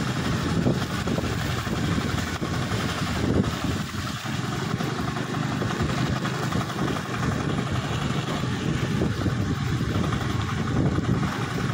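Engine of the vehicle carrying the camera running steadily while it drives along a rain-soaked road, over a continuous hiss of tyres on the wet surface.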